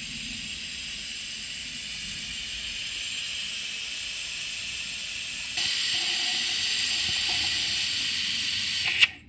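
Steady hiss of a suction tool drawing old brake fluid out of the reservoir. It gets louder about five and a half seconds in and cuts off just before the end.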